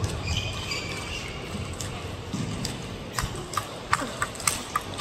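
Table tennis balls clicking off rackets and tables in a practice rally: sharp, evenly spaced clicks, about two to three a second, growing clear about three seconds in, over a murmur of voices in the hall.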